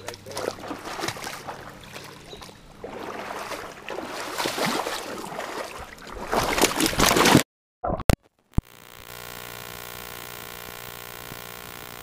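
Feet wading and splashing through shallow creek water, irregular and sloshing. About seven seconds in the sound cuts out abruptly, two or three sharp clicks follow, and then a steady, even hum takes over.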